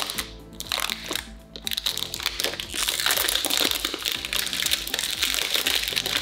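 Perfume box packaging crinkling and crackling as it is opened by hand, denser from about two seconds in, with background music underneath.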